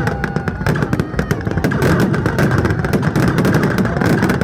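Fireworks crackling and popping in rapid, irregular strings over a continuous loud background din.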